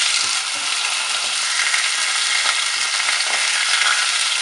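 Rohu fish steaks sizzling steadily in hot oil in a pan on medium heat, with a few light scrapes and knocks of a wooden spatula turning them.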